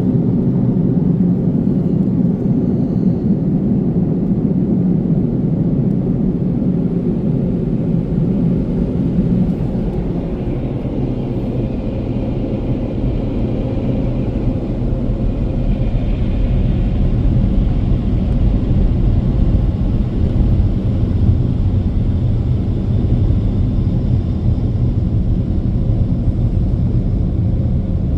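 Ryko Vortex car-wash air dryers blowing with a loud, steady rumble as the car rolls slowly out of the wash. About ten seconds in the sound turns deeper and steadier.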